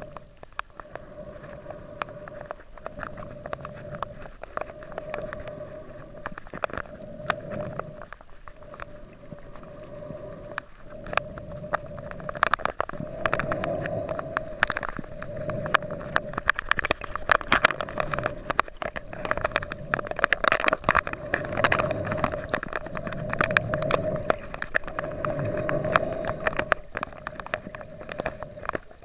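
Underwater sound picked up by a camera in a waterproof housing while snorkeling. Water swishes in slow surges over a steady hum, with many sharp clicks and crackles, all growing louder about twelve seconds in.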